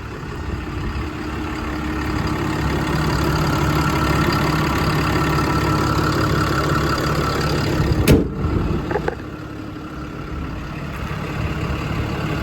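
A 6.7-litre Cummins diesel idling steadily. There is one sharp knock about eight seconds in, after which the engine sound is quieter.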